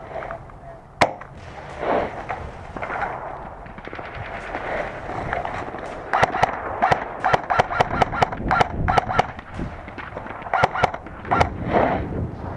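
Airsoft guns firing: one sharp shot about a second in, then a rapid string of shots several a second, with a few more near the end.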